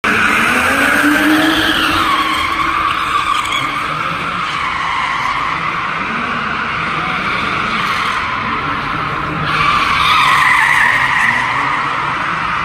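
BMW drifting: its tyres squeal continuously, wavering in pitch, with the engine revving underneath. The squeal swells louder about ten seconds in.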